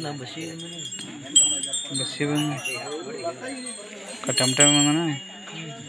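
Men's voices chanting in held, wavering phrases, with small metal hand percussion ringing and jingling over them.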